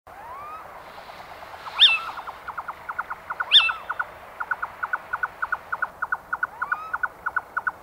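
Night birds calling, taken for owls: a long run of short, quick notes, about five a second, broken twice by a loud, high call that drops in pitch, with a few faint rising whistles.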